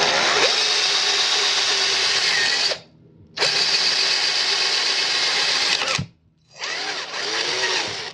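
Electric drill boring the mounting holes for the dash switches, run in three spells of about two and a half, two and a half, and one and a half seconds, with short stops between them.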